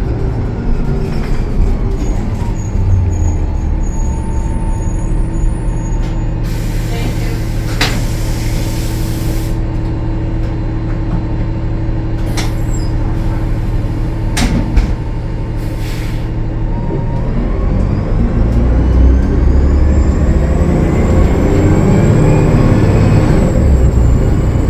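Diesel engine of a Gillig Low Floor transit bus, a Cummins ISL9, idling steadily, with a burst of air hissing from about seven to nine seconds in and a few clunks. About two-thirds of the way through the bus pulls away: the engine gets louder and a whine rises in pitch as it accelerates.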